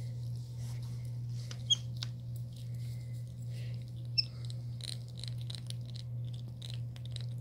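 Capuchin monkey gnawing and chewing on a small lid: soft scattered clicks and crackles, with two sharp clicks about 2 and 4 seconds in and a quick run of small clicks near the end, over a steady low hum.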